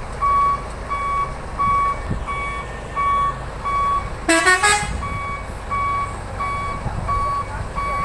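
Truck reversing alarm beeping steadily, about three beeps every two seconds, over the low running of a diesel engine. About four seconds in there is one short, loud horn toot.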